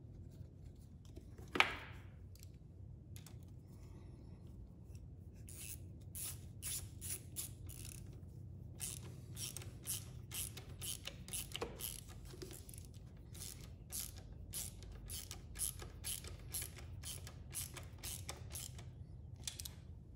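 Hand ratchet with a 10 mm socket clicking in quick runs of strokes as it tightens a bolt holding a ground ring terminal, after a single sharp click a second and a half in.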